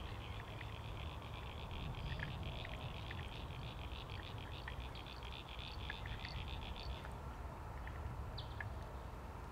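An animal's rhythmic pulsing call, about five pulses a second, that stops about seven seconds in. A few short bird chirps and a steady low rumble lie underneath.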